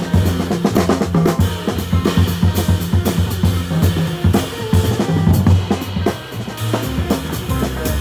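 Jazz combo playing, with the drum kit loudest: cymbal and snare strokes up close over upright double bass notes.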